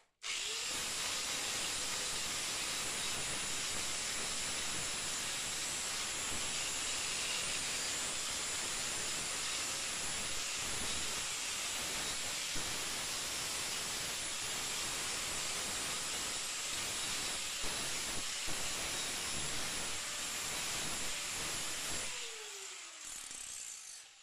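Electric angle grinder running steadily, grinding on a steel mower deck, with a constant high whine. It is switched off near the end and its whine falls away as the disc spins down.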